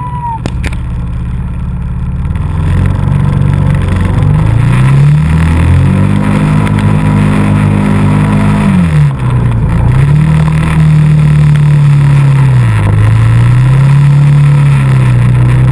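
ATV engine running under throttle. Its pitch climbs in steps, holds high, falls off sharply about two-thirds of the way through, then picks up again with one more brief dip before rising.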